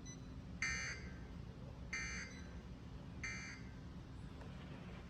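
Emergency Alert System end-of-message data tones: three short bursts of buzzy digital warbling, about 1.3 s apart. They mark the end of a broadcast weather warning.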